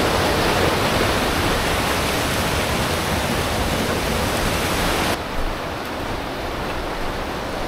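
Fast mountain stream rushing over rocks in white-water rapids, a dense steady roar. About five seconds in it drops a little and sounds less hissy.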